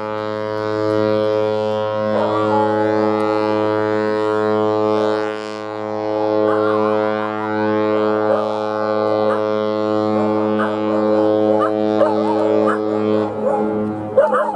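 Cruise ship Scarlet Lady's horn sounding one long, steady, low departure blast that cuts off shortly before the end, with people's voices calling out over it.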